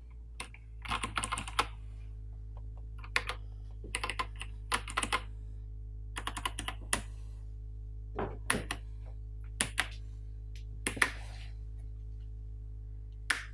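Keystrokes on a Drevo Gramr mechanical keyboard with Outemu brown switches and SA-profile keycaps, pressed in short irregular clusters of clicks. This is a demonstration of SA keycaps making some switches stick. A steady low hum runs underneath.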